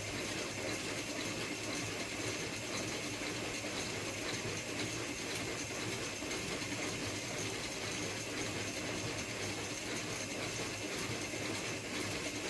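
Home-built CNC saw's motor running steadily, driving the blade through steel, with an even hiss and a faint high whine.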